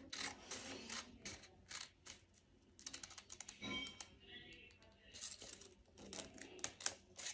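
Scissors cutting through paper in runs of quick, crisp snips, with short pauses between the runs.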